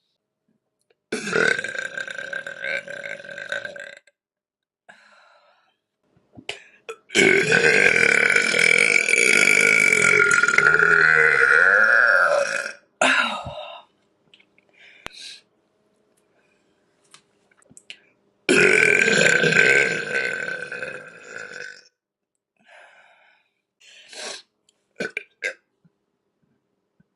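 A woman burping loudly: three long, drawn-out burps, the middle one lasting about five and a half seconds, with a few short, quieter sounds between them.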